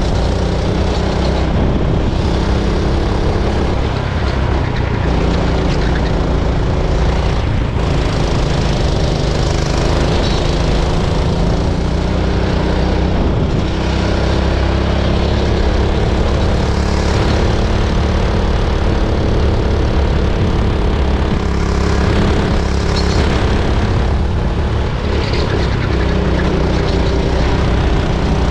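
Racing kart's small engine running hard, heard on board, its pitch dipping and rising a little as the kart slows for corners and accelerates out of them.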